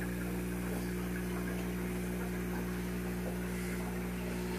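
Aquarium air pump humming steadily, with a soft hiss of air bubbling up through the tank water.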